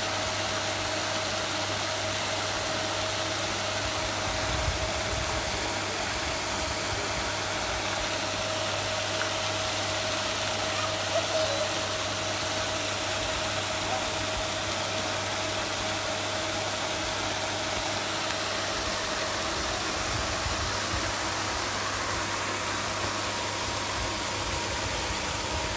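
Paddle-wheel pond aerator running, its wheel churning the water into a spray with a steady splashing hiss and a steady motor hum.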